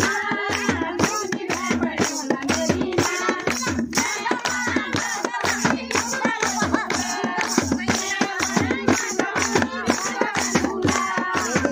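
A group of women singing a Kumauni folk song together, with rhythmic hand clapping keeping a steady beat of about three claps a second.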